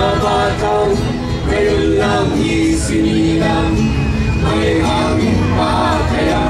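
A small mixed group of men and women singing together in Tagalog, with an acoustic guitar strummed along.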